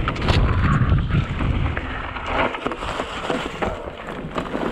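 Mountain bike rolling fast down a dirt forest trail: wind rumbling on the camera microphone, with tyre noise and quick rattling clicks from the bike over bumps. The wind rumble eases about halfway through, leaving mostly the rattles and tyre noise.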